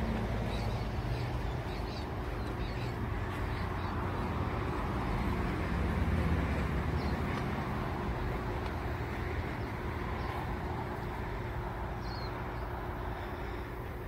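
Steady rushing outdoor noise with a low rumble, and a short faint bird call about twelve seconds in.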